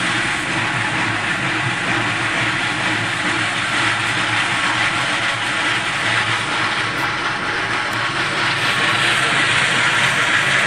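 Moldovanka rail-mounted stone-cutting machine running steadily, a loud, even mechanical drone with a broad grinding hiss, growing slightly louder near the end.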